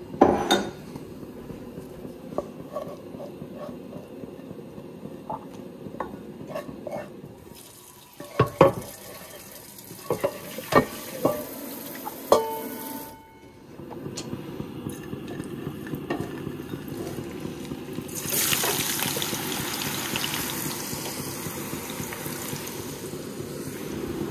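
Kitchen work sounds: scattered knocks and clatters of dishes and utensils, and a kitchen tap running, followed by a steady hiss that grows louder in the second half.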